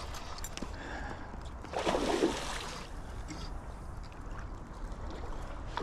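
River water running and trickling, with a louder splash about two seconds in.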